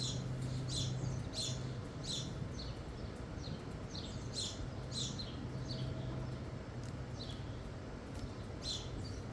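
Small birds chirping repeatedly, short falling chirps about twice a second, over a steady low hum.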